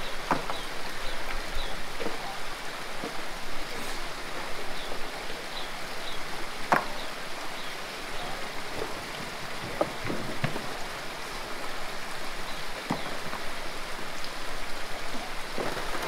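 Mountain stream running steadily, with a few sharp knocks now and then.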